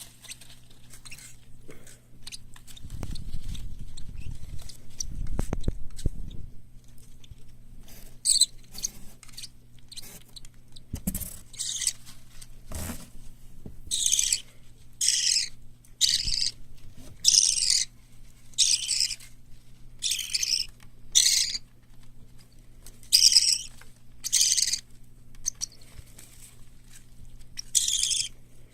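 Parrot chicks (lovebird, cockatiel and budgerigar) calling: short, harsh, hissing calls repeated about once a second from about eight seconds in, after a low rumble of handling noise in the first few seconds.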